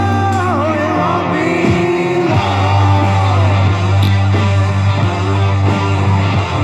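Rock music with a held bass, guitar and a gliding lead line that may be a singing voice.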